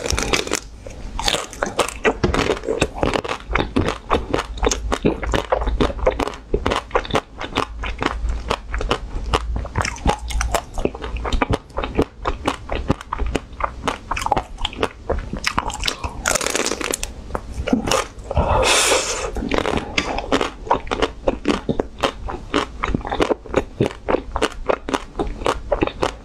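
Close-miked biting and chewing of a coated ice cream bar: the hard pink shell cracks and crunches in a dense run of quick snaps, with chewing between bites.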